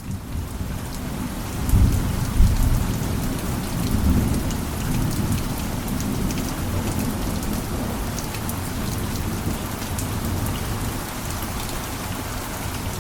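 Rain falling steadily on a surface, with fine drop patter, fading in at the start. A low thunder rumble swells about two seconds in and rolls on for a few seconds.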